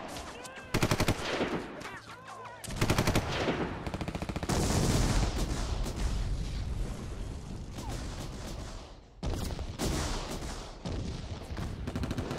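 Firefight sound effects: rapid bursts of automatic machine-gun fire and gunshots, coming in several loud stretches with short lulls between.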